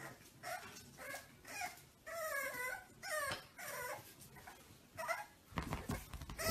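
Puppy whining and yipping in play: a string of short high calls about two a second, with one longer wavering whine about two seconds in.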